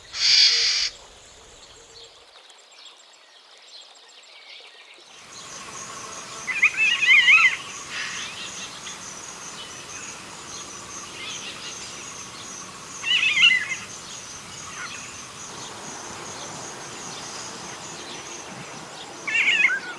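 African golden oriole calling: a brief harsh call at the start, then three short, loud, warbling whistled phrases about six seconds apart over a steady high insect-like hiss.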